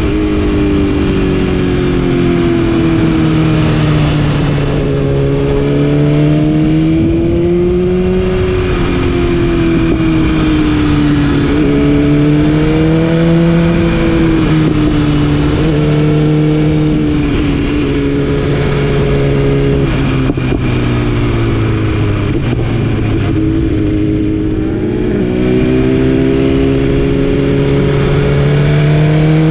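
2020 BMW S1000RR inline-four with an Akrapovic exhaust, running under load with its note rising and falling over several seconds at a time as the throttle is opened and eased off.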